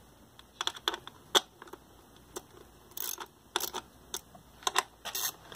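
Scattered sharp metallic clicks and taps, often in pairs at uneven spacing, from hand tools and bolts as the ignition coil's two mounting bolts are fitted and tightened.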